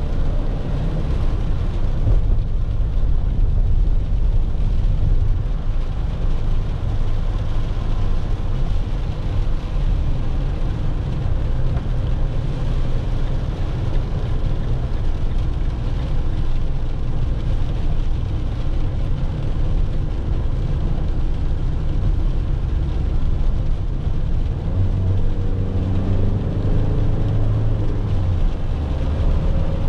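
Peugeot Boxer van driving on a wet road, heard from inside the cab: a steady low engine and road rumble with the hiss of tyres on wet tarmac. The engine note rises briefly near the end.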